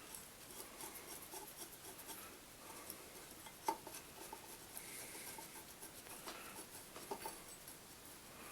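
Faint, irregular clicking and scraping of a hand wrench turning a bolt on the alternator's upper mounting bracket, with two sharper metal clicks at about three and a half and seven seconds in.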